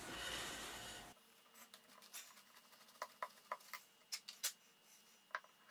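Paper kitchen towel rustling as it is handled and laid on a loudspeaker's front baffle, louder for about the first second. Then a scatter of faint, light clicks and taps.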